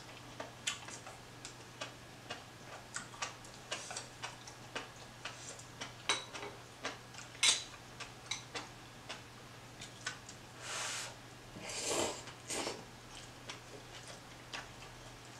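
Close-up eating sounds: a person chewing noodle soup, with a steady run of small wet mouth clicks and smacks, and two longer breathy sounds about eleven and twelve seconds in.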